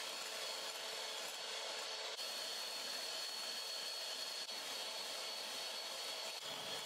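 Electric hand mixer running steadily with a high motor whine, its twin beaters whipping cream in a bowl.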